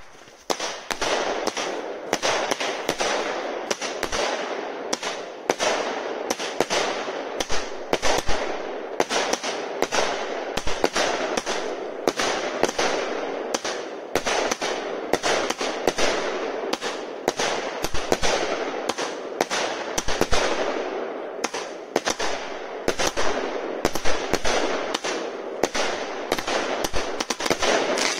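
A multi-shot fireworks battery firing continuously: sharp launches and bursting shells, about two or three bangs a second, over a steady crackle and hiss, with no break.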